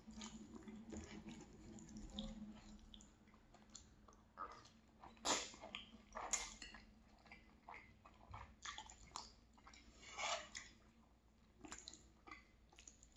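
Close-up mouth sounds of eating linguine in tomato sauce: chewing and slurping of the pasta, with scattered sharp clicks from a fork against the frying pan as the noodles are twirled.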